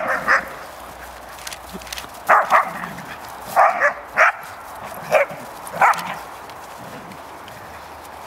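Dogs barking in short, sharp bursts while they play rough: about nine barks in clusters of one or two, stopping about six seconds in.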